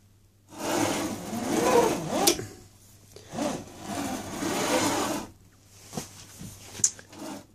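Salvaged drop-saw slide carriage being pushed along its rails on a drill-press X-Y table, running with a mechanical rattle in three sliding strokes, the last one weaker, with a few sharp clicks.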